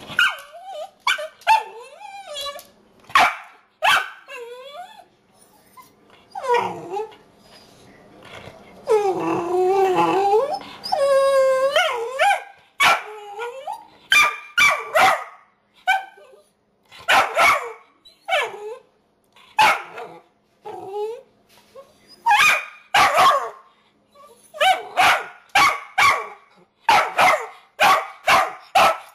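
Ten-month-old dachshund-chihuahua mix puppy barking, annoyed that her food has been left on the counter. Sharp barks come in quick runs of two to four, with a few long wavering howl-like whines about a third of the way through.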